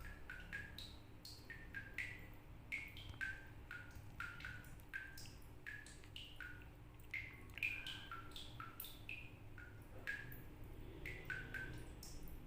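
Water dripping from a tap in a small tiled toilet room, each drop landing with a short pitched plink like a little drum or wood block. The drops come irregularly, about two to three a second, at varying pitches.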